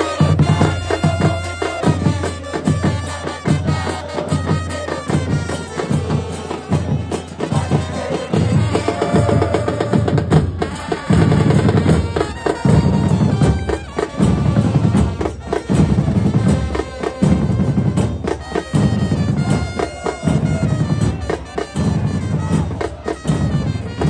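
Football supporters' band playing in the stands: large bass drums (bombos) beating a steady march rhythm with trumpets playing the tune. A crowd chant rides over it.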